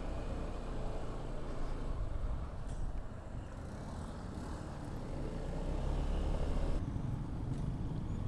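Motorcycle riding along the road at a steady pace, its engine and road noise blended into a steady low rumble.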